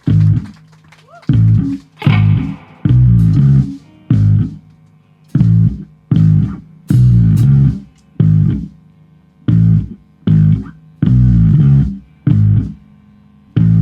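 Rock band playing live in loud stop-start hits: bass and electric guitar chords struck together with the drums, each hit cut off sharply, with short silences between.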